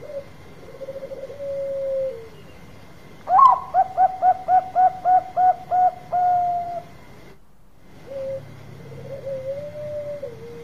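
Zebra dove (Bangkok-bred perkutut) cooing: a soft trilled call, then a loud phrase of about eight quick staccato coos ending in a long held note, then another softer call. The sound cuts out briefly about seven seconds in.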